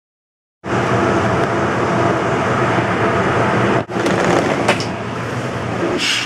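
Silence, then about half a second in a loud, steady mechanical hum starts abruptly. It breaks off for an instant near four seconds, and a few light knocks come over it later.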